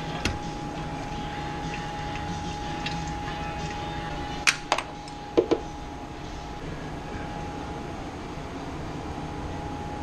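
A few sharp metal clicks and clinks as the drain plug and a tool are handled under the car: one near the start, then two quick clicks and two ringing clinks about halfway through. A steady hum with a faint high tone runs underneath.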